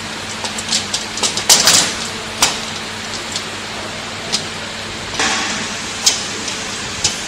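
Light clicks and knocks of a plastic elevator bucket being handled against the steel frame and chain of a bucket elevator, a cluster of them between about one and two and a half seconds in and a brief scraping rustle after five seconds, over a steady hum.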